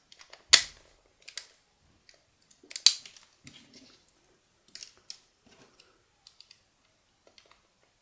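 Sharp clicks and snaps of hand tools cutting and prying apart the casing of a spent 9V battery, with two loud snaps about half a second in and near three seconds in and lighter clicks in between.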